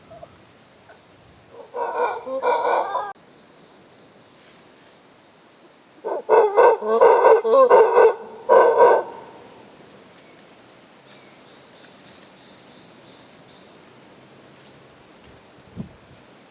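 Monkeys calling in the treetops: two loud bursts of rapid, pulsing calls, the first about two seconds in and a longer one from about six to nine seconds.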